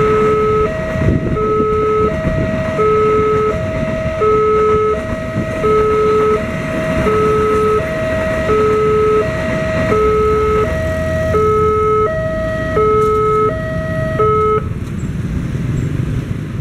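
Indonesian railroad level-crossing warning alarm sounding, alternating a lower and a higher electronic tone about every 0.7 s, then cutting off about 14.5 s in. Under it, the low rumble of the passing passenger train.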